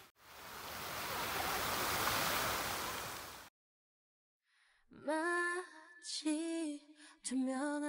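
Steady rushing and splashing of a large fountain's many water jets, cutting off abruptly about three and a half seconds in. After a second of silence, a song with a woman singing begins.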